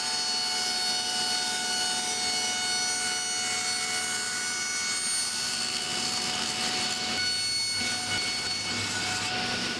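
Power tool motor running steadily with a high whine while cutting a dado into wood, then shutting off at the end.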